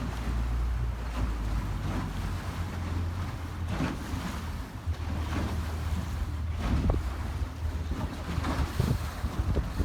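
Wind buffeting the microphone over the steady low drone of a small river ferry's engine, with water washing around the boat.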